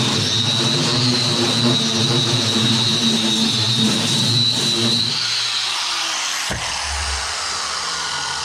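An electric power tool running steadily with a high whine, shut off about five seconds in and winding down, with a single click shortly after.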